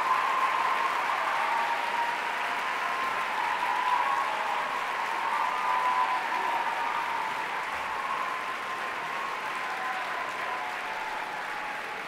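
Audience applauding, slowly dying down.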